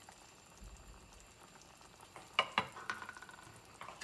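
Creamy yogurt sauce with chicken simmering in a frying pan on medium heat, with a faint sizzle. A little past halfway come two sharp knocks against the pan in quick succession, each followed by a brief ring, and another knock comes near the end.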